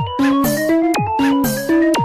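Background music: a looped electronic tune with a drum hit once a second and a short rising run of plucked notes repeating every second.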